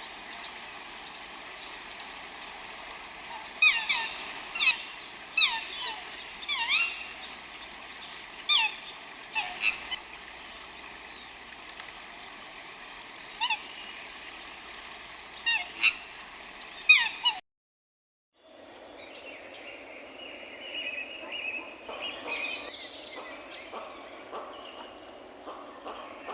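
Birds calling: short downward-sliding calls in bursts of two or three over a steady background hiss. After about 17 seconds the sound cuts out for a moment and gives way to a different background of busier, softer chirping birdsong.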